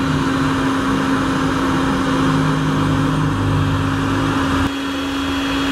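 Dongcheng 2000 W electric heat gun running: a steady fan-motor hum with a rush of blown air, with a brief dip about three-quarters of the way through.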